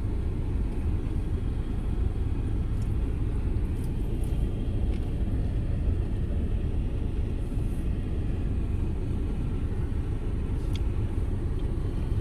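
Wind blowing across the microphone, a steady low rumble.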